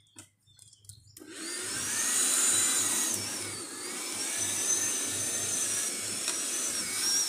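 Lawn mower starting abruptly about a second in and then running steadily, with a whine that wavers up and down in pitch.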